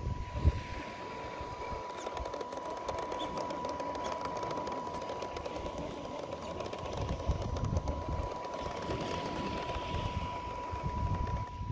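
Traxxas TRX-4 RC crawler's electric motor and drivetrain whining steadily under throttle as it crawls through soft sand, with a thin high steady tone that cuts off right at the end, over low uneven rumbling.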